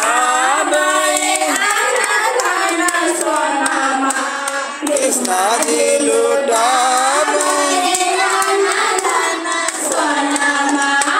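A woman singing a devotional song into a microphone, with other voices joining in and hands clapping along.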